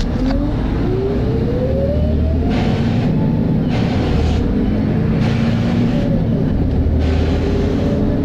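Volvo B7RLE single-deck bus's diesel engine and driveline pulling away, a whine rising in pitch over the first few seconds, with repeated bursts of hiss from about halfway through.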